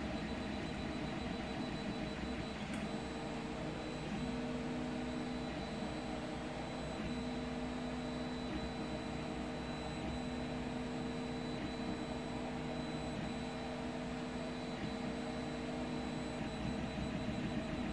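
Home-built CoreXY 3D printer printing: its stepper motors sound in short pitched tones that start, stop and change pitch every second or two as the print head moves. Under them runs the steady whir of the printer's fans, with a thin high whine.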